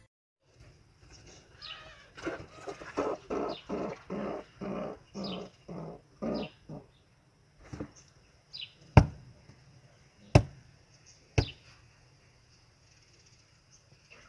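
A run of about ten short animal calls, roughly two a second, with a few high, quick chirps over them. Then three sharp knocks about a second apart, the loudest sounds here.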